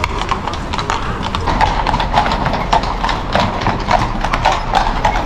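Horses' hooves clip-clopping on the street, many quick hoofbeats overlapping over a steady low rumble.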